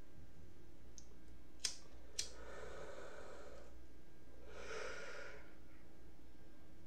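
A pocket lighter struck three times, sharp clicks a little over a second apart. Then come two long breathy draws, each about a second, as something is lit and inhaled.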